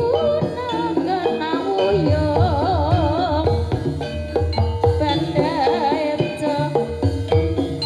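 Javanese gamelan music (gending): bronze gong-chime and drum strokes under a melody line with a wide wavering vibrato, playing continuously.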